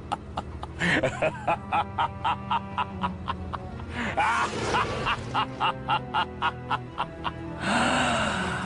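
Short music clip with a quick steady beat, about four beats a second, and sliding, voice-like sounds over it about a second in, about four seconds in and near the end; it cuts off suddenly.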